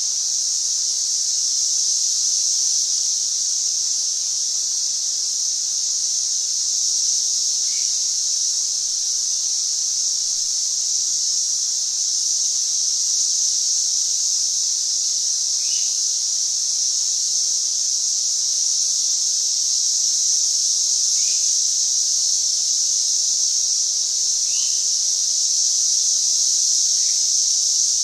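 Chorus of Brood XIX 13-year periodical cicadas singing loudly: one steady, unbroken high-pitched drone. A few faint short chirps sound now and then beneath it.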